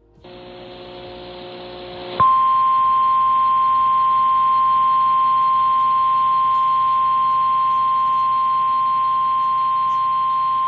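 NOAA Weather Radio warning alarm tone: one loud, steady 1050 Hz tone held for about nine seconds, signalling that a weather warning message follows. It is preceded by about two seconds of hiss with a faint hum as the radio broadcast opens.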